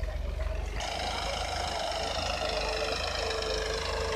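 Massey Ferguson 9500 tractor engine running steadily under heavy load as it drags a cultivator weighed down with standing men through ploughed soil. A low drone runs throughout, and about a second in a steady higher-pitched whine joins it and holds.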